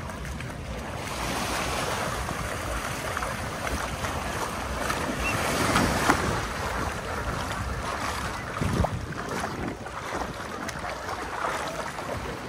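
Legs wading and splashing through shallow sea water, over the steady wash of small surf and wind on the microphone. The loudest splash comes about six seconds in, with another a little before nine seconds.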